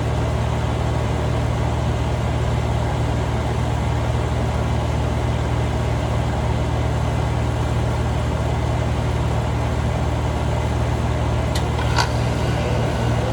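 Steady low hum of a nearby running machine or engine, with two sharp clicks close together near the end.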